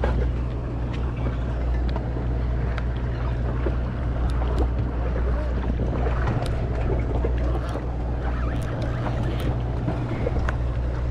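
Boat engine running steadily with a low hum, under wind and sea noise.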